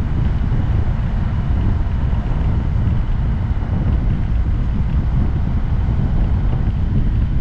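Steady wind rush buffeting an action camera's microphone while riding a 2022 Honda Grom motorcycle, with its small single-cylinder engine running evenly underneath.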